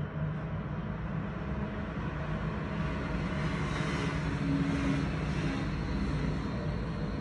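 Tram passing along street tracks below: a steady low rumble with rolling noise that swells about four to five seconds in as it goes by.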